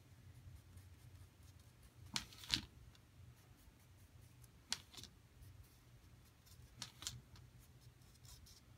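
Faint, scattered short scratches of a Sharpie marker tip dashing a dotted line onto construction paper, coming in pairs a couple of seconds apart, over a low steady hum.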